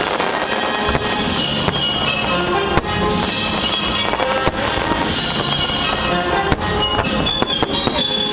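Fireworks going off in a continuous barrage, with a dozen or so sharp bangs and crackles, while music plays underneath.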